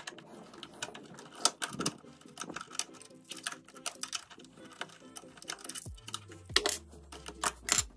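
Irregular clicks and taps of a screwdriver working a screw on a metal monitor arm while its cable cover is fitted back in place.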